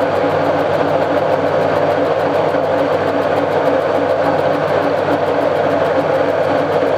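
Milling machine running steadily while face-milling an aluminium cylinder head, a loud even machine drone with a faint regular pulse.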